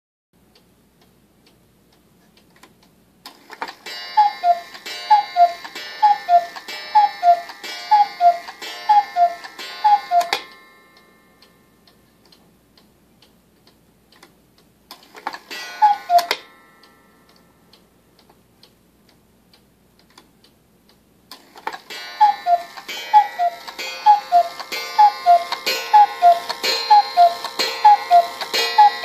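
Bachmaier & Klemmer one-day cuckoo clock ticking, then calling its two-note falling "cuckoo" over the whirr and clatter of its striking mechanism. There is a run of about seven calls, a single call, then another run of about eight, each group followed by a brief metallic ringing.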